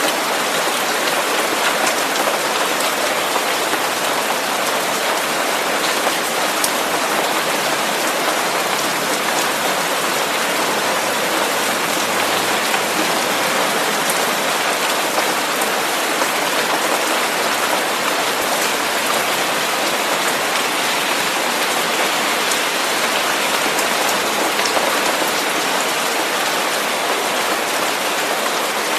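Steady rain: an even hiss with faint, scattered ticks of single drops.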